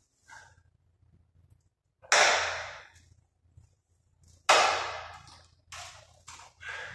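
A painted sheet-steel cabinet panel being rubbed down by hand as a series of short scrubbing strokes. Two of the strokes, about two and four and a half seconds in, are much louder, start sharply and fade over most of a second.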